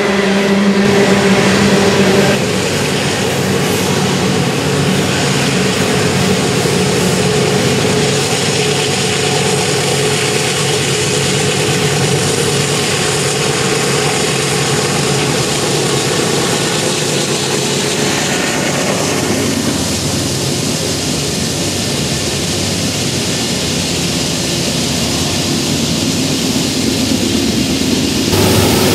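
Loaded Union Pacific coal train climbing a grade: steady rumble of the hopper cars on the rails, with the diesel engine of a trailing locomotive running under load as it passes. The sound thins out after about two-thirds of the way through, and changes abruptly near the end.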